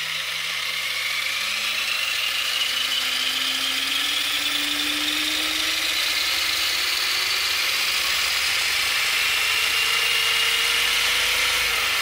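Brushless motor and gear drivetrain of a Tamiya Konghead 6x6 RC truck whining with its wheels spinning free in the air, as the throttle is eased steadily open. The whine climbs slowly and evenly in pitch as the motor speeds up.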